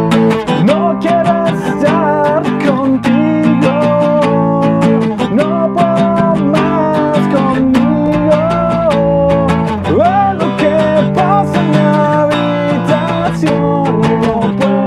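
Steel-string acoustic guitar strummed and picked in a steady rhythm, with a male voice singing a melody over it.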